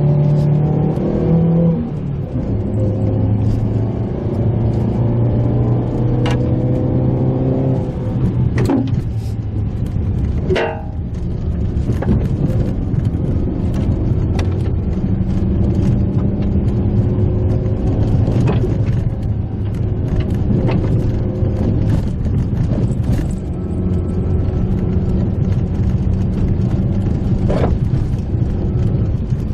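Mitsubishi Pajero Mini's engine running as it drives a rough forest road, the engine note shifting a couple of times with the revs, with scattered knocks and clicks from the bumpy road surface.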